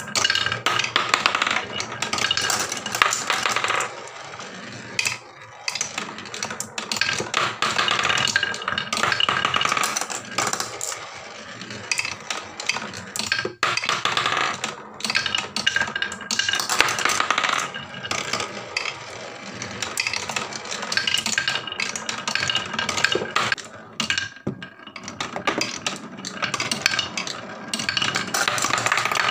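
Glass marbles rolling and clattering down wooden marble-run tracks, a dense run of clicks and knocks as they bump over track joints, into each other and through a carved wavy groove. The clatter comes in waves with a few brief lulls.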